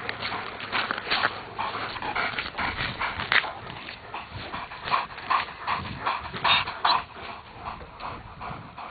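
A young Alaskan Malamute close by, making a quick, irregular run of short noisy sounds, a few a second.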